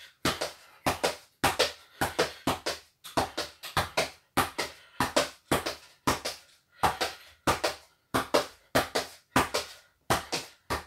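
A football being juggled on the feet: a steady run of dull kicks on the ball, about two a second.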